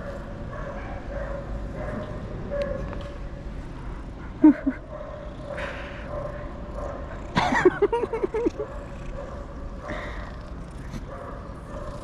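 Short, yelping animal calls: a pair about four and a half seconds in, then a quick string of them around seven and a half to eight and a half seconds in, over a faint steady tone.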